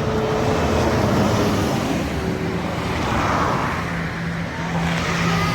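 Fast motorway traffic going by: tyre and engine noise that swells and fades as vehicles pass, with no horn sounding.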